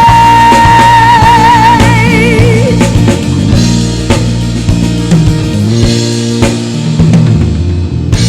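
Live worship band playing rock-style music with a full drum kit, bass and chords, between sung lines. A singer holds the last note with vibrato for the first couple of seconds, then the band plays on without vocals.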